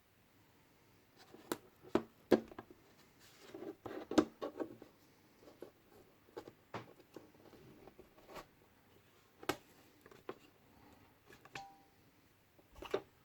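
Handling noise of a diesel heater's plastic case and parts: scattered clicks and knocks with light rustling, and a short squeak near the end.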